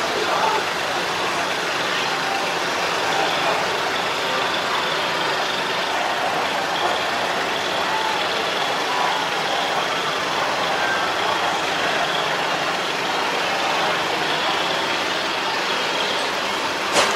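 Steady mechanical background din with an engine-like hum, even throughout with no speech, and one short sharp knock near the end.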